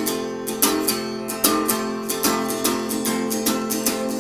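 Background music: an acoustic guitar strumming with a steady beat.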